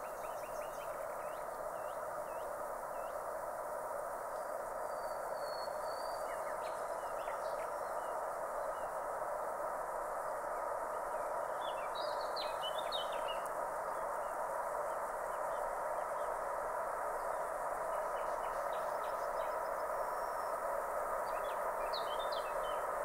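Distant freight train approaching, a steady hum that slowly grows louder, with small birds chirping now and then above it.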